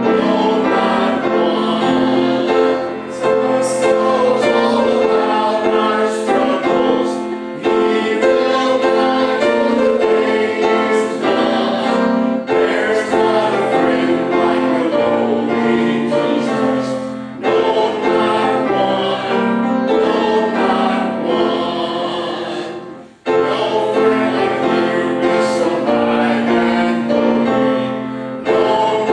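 Choir singing with piano accompaniment, in long held phrases, with a short break about 23 seconds in.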